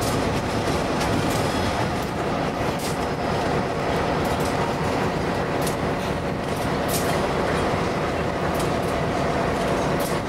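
Freight train of tank cars rolling past, a steady rumble of steel wheels on rail with sharp clicks every second or so as the wheels pass over the track.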